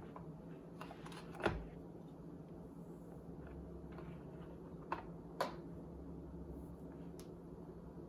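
A few light knocks and clicks from the kettle and its packaging being handled, the loudest about a second and a half in and two smaller ones near the middle, over a steady low hum.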